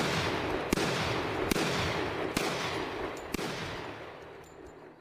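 Gunshot sound effect: about five shots, a little under a second apart, over a noisy tail that fades away toward the end.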